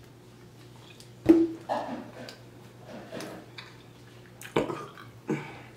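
A woman burping: one loud, sudden burp about a second in, then two shorter burps near the end, with quieter mouth and eating noises between.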